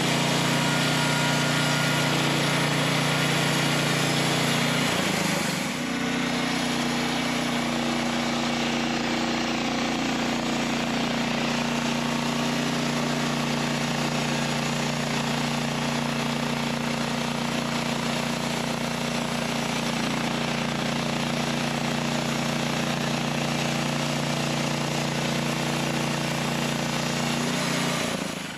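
Norwood LumberMate portable bandsaw mill at work: its gas engine running at high throttle while the band blade saws lengthwise through a poplar log. The engine note shifts about five seconds in, and the sound drops away right at the end as the cut finishes.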